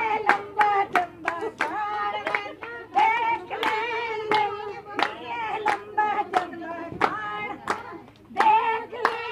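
Women singing a song while clapping a steady beat, about three sharp hand claps a second.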